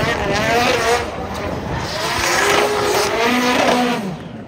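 Drift car's engine revving hard, its pitch swinging up and down, with tyres squealing in a long slide. The sound fades near the end.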